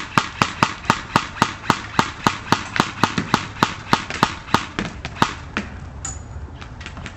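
Airsoft gun firing a quick, steady string of single shots, about three or four a second, which stops about five seconds in, with a few scattered shots after.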